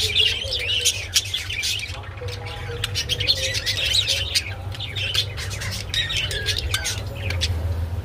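Budgerigars chattering and warbling in quick, wavering chirps with harsh squawks and sharp clicks, dropping off briefly about two seconds in. A steady low hum runs underneath.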